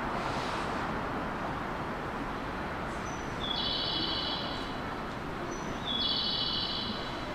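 Steady station-platform noise around a stopped electric train, with a bird-like chirping call sounding twice, about two and a half seconds apart: each a brief high note followed by a held high tone of about a second.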